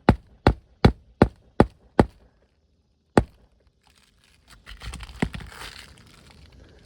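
Hammer driving roofing nails to fasten a replacement 3-tab shingle: six quick, even strikes, then a single blow about three seconds in, followed by rustling and scraping of the shingles.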